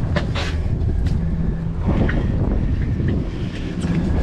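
Wind buffeting the microphone, over a steady low hum, with a few short knocks and rustles as the seat cushions and gear are handled.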